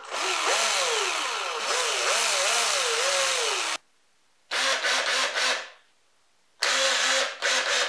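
Cordless drill spinning a length of wire to twist it into eyelets. It runs for about three and a half seconds with its motor pitch wavering up and down as the trigger is varied, stops, then gives two short bursts.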